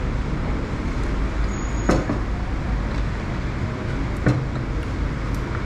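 Steady road-traffic rumble, with two sharp clicks about two and four seconds in.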